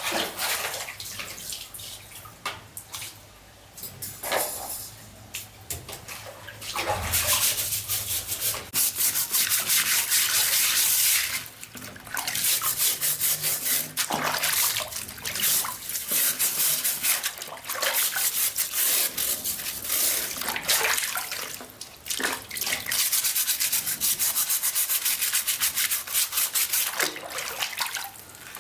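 Abrasive rubbing in rapid back-and-forth strokes, like sanding or scrubbing a surface, in runs of a few seconds with short breaks. It starts sparsely and becomes steady about seven seconds in.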